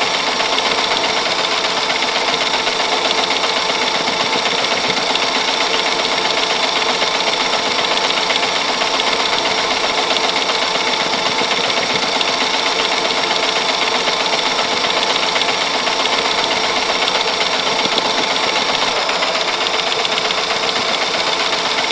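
Antique movie camera rolling, its film transport clattering in a fast, steady rhythm.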